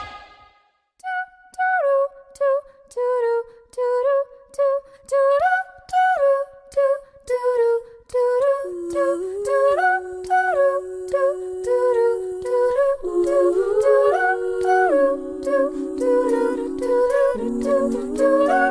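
A cappella group singing: after about a second of silence, voices start a melody of short notes that step up and down, and from about halfway lower voices hold long notes in harmony beneath it.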